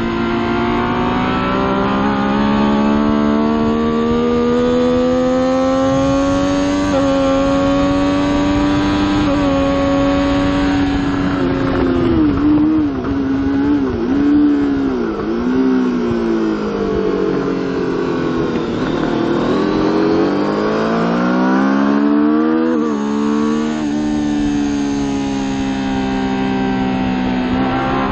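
Triumph Daytona 675's three-cylinder engine heard from onboard at racing speed, over wind rush. The revs climb steadily at first. About halfway through, the pitch wavers up and down several times, then dips and climbs back up before settling.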